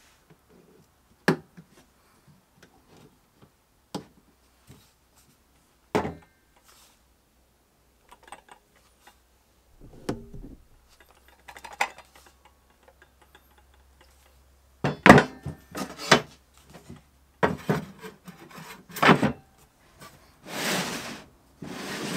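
Handling of a cordless circular saw clamped in a plywood guide jig with toggle clamps. A few sharp, spaced-out clicks and knocks come first. About two thirds of the way through there is a run of louder wooden knocks and rubbing, then a scraping slide as the jig is lifted and set down on the workbench. The saw is not running.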